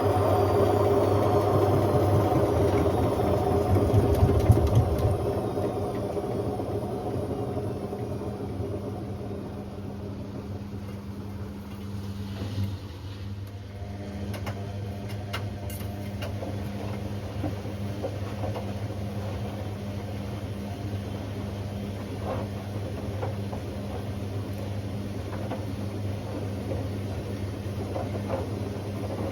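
Hotpoint Aquarius WMA50 washing machine during its spin: a falling motor whine and drum rumble that are loud for the first few seconds, then ease off over the next several seconds. A steady, quieter low hum follows, with a few faint clicks.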